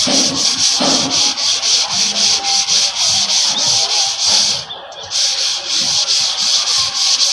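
Sandpaper rubbing over a puttied exterior wall in quick back-and-forth hand strokes, a rhythmic scratchy hiss of about three strokes a second, with a brief pause a little under five seconds in.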